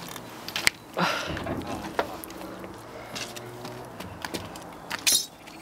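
Footsteps on the gravel ballast of a railway track: a run of irregular crunching steps on loose stones.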